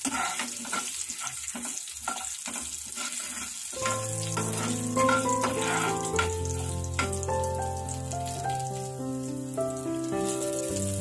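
Mustard seeds, cumin, chana dal and urad dal sizzling and crackling in hot oil as a spoon stirs them in the pan. About four seconds in, background music with long held notes and a bass line starts and carries on over the sizzle.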